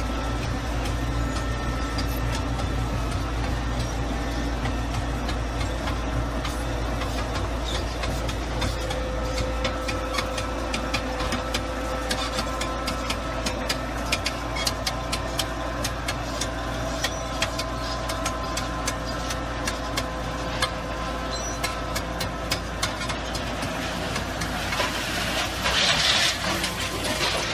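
A machine's engine running steadily, with rapid irregular clicks and rattles joining in from about ten seconds in and a louder rushing noise briefly near the end.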